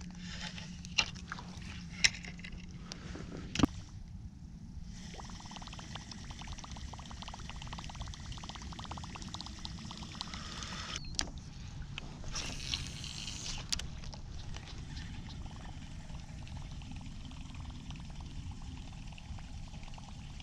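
Water lapping and trickling against a kayak hull, with a few sharp clicks and knocks in the first four seconds.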